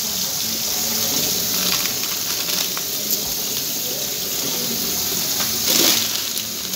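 Kitchen tap running steadily into a stainless steel sink. Near the end comes a louder crinkle of plastic bags being handled.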